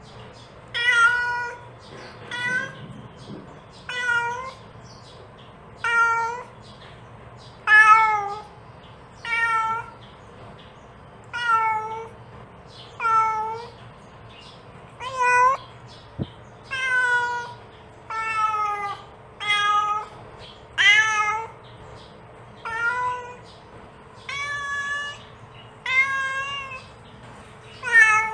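A mother cat meowing over and over to call her kittens: short pitched meows, about one every second and a half, many of them dropping in pitch at the end.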